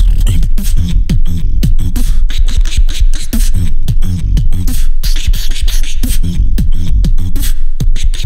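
Beatboxing into a microphone cupped at the mouth: a fast, unbroken run of sharp percussive mouth sounds over deep bass notes that slide down in pitch.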